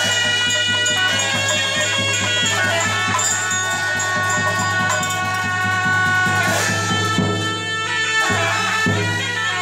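Tibetan Buddhist ritual music: held wind-instrument notes that shift pitch every few seconds over a steady low drone, with drum strokes underneath.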